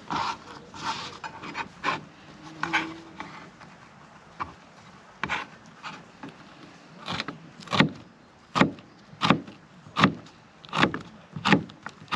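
Footsteps on the woodland floor, each step a short crunch. They come irregularly at first, then settle into an even walking pace of about one step every 0.7 seconds.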